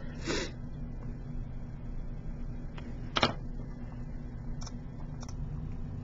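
Room tone with a steady low hum, broken by a short hiss just after the start, a sharper brief noise about three seconds in, and two faint ticks near the end.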